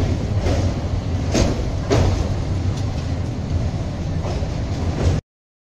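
Express train coach running over a steel truss river bridge, heard from inside at an open window: a steady low rumble of wheels on rails with sharp clacks, the two loudest about a second and a half and two seconds in. The sound cuts off suddenly near the end.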